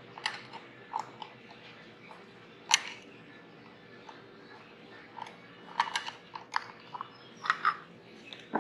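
Small parts and tools being handled: a string of irregular sharp clicks and crunchy taps, the loudest a little under three seconds in, over a faint steady hum.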